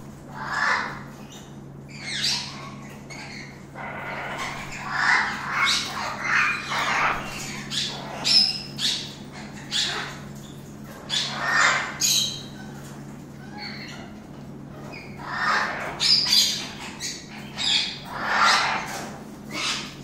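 Yellow-crowned Amazon parrot squawking: repeated loud, harsh calls in bouts, some short and some drawn out, with pauses of a second or two between them.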